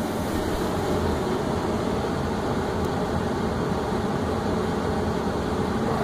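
Home HVAC air handler's blower running steadily, a constant rush of air with a low hum.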